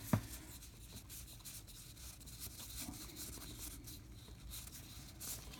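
Faint rustling and rubbing of a stack of Topps Heritage Minor League baseball cards being fanned out and slid against one another in the hands, with one soft tap just after the start.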